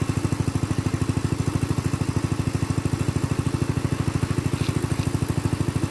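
A small engine running steadily at an even speed, with a regular chugging beat of about a dozen pulses a second.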